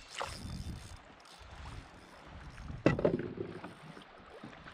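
Water and wind noise around a fishing kayak, with one sudden loud thump about three seconds in that trails off over half a second.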